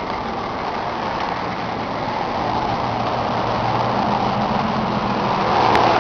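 John Deere 4850 tractor's turbocharged six-cylinder diesel engine idling steadily, growing louder near the end.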